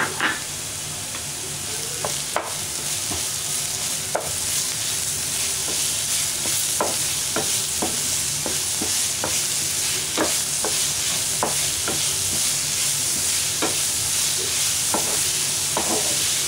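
Chopped onions and ginger-garlic paste sizzling in hot oil in a pan, at the sautéing stage where the raw paste is being fried. A spatula scrapes and taps against the pan as they are stirred, irregularly at first and more often in the second half.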